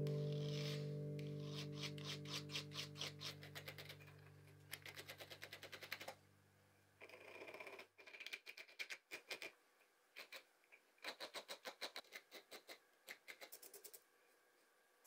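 Needle file rasping back and forth on a tiny metal model-engine part held against a wooden block, faint strokes about three a second in short runs with brief pauses. A guitar chord dies away in the first few seconds.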